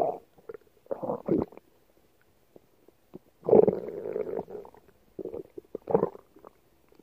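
A person's stomach growling in irregular rumbles: a short one at the start and another about a second in, a quiet spell of about two seconds, then a longer rumble of about a second, followed by two short ones near the end.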